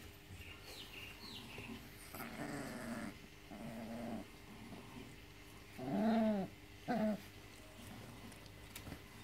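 Five-week-old Staffordshire bull terrier puppies play-fighting: a couple of faint squeaks and small growls, then two louder yelps in the second half, the second one short.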